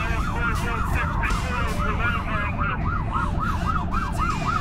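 Emergency vehicle siren in yelp mode, a fast rise-and-fall wail about three and a half cycles a second, over the low rumble of the vehicle driving on the road, heard from inside the responding vehicle's cab.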